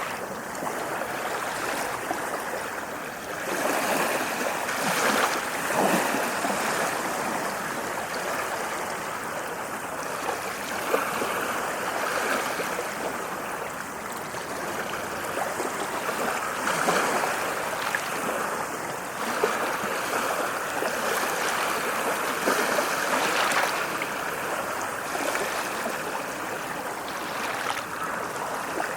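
Ocean waves washing onto a beach: a continuous rush of water that swells every few seconds as each wave breaks and runs up the shore.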